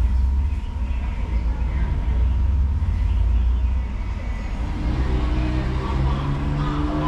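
Diesel train engine running with a heavy low rumble. From about five seconds in, it revs up into a slowly rising drone.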